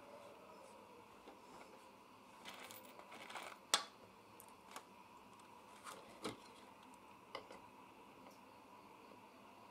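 Faint handling noises of wire and small metal parts being bent and fitted by hand: a short rustle, then a few sharp clicks, the sharpest a little under four seconds in.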